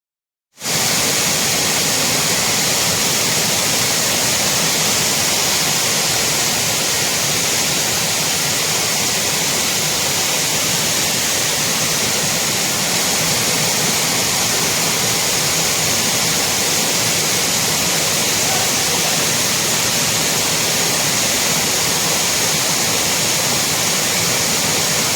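Waterfall's steady rush of falling water, cutting in suddenly about half a second in and holding even throughout.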